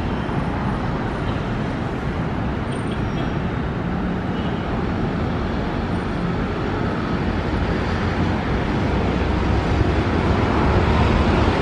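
Steady road traffic noise, a constant low rumble of passing vehicles with no distinct events, growing slightly louder over the last few seconds.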